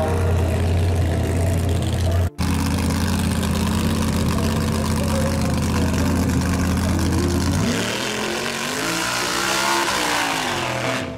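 Engine idling steadily. About two seconds in, it cuts to a drag car's engine running steadily at the line, then revving up and back down as it spins its rear tyre in a burnout.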